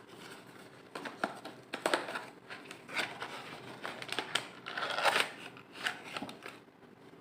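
Close handling sounds: a string of irregular light clicks and knocks with rustling between them, and a longer scraping or rustling stretch about five seconds in.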